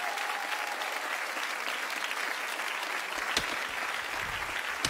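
Studio audience applauding steadily, with a couple of low knocks near the end.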